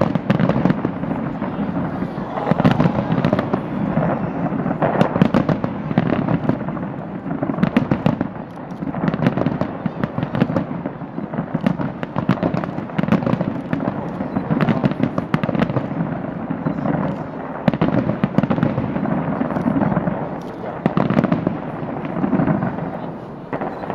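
Fireworks fired from the sides of a skyscraper: a dense, unbroken run of overlapping bangs and crackling.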